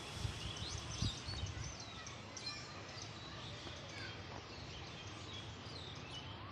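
Outdoor ambience with many small birds chirping, over a steady background hiss. A few low thumps come in the first second and a half.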